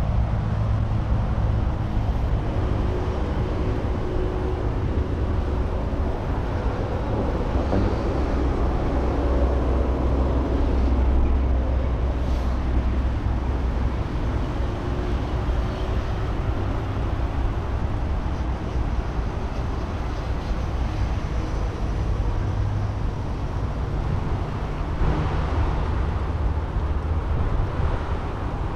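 Steady low rumble of road traffic, with faint engine hum swelling and fading as vehicles pass.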